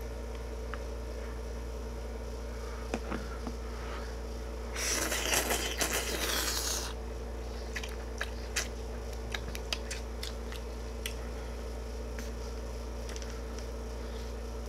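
A long slurp of soupy ramen noodles for about two seconds in the middle, followed by a scatter of short, soft chewing clicks. A steady low hum runs underneath.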